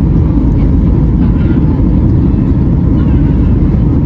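Steady low roar of a Boeing 737 MAX 8's engines and airflow, heard inside the passenger cabin.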